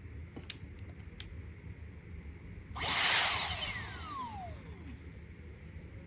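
A small high-speed motor, likely the Dyson Airwrap hair styler's, bursts on about three seconds in. Its whine then falls steadily in pitch as it spins down over about two seconds.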